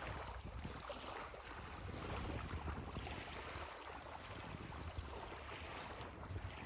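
Wind rumbling on the microphone over a steady wash of Lake Superior water.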